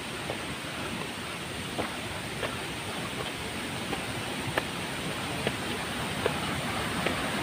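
Steady rushing of river water, with irregular footsteps of sandals crunching on dry leaves and twigs along a steep dirt trail.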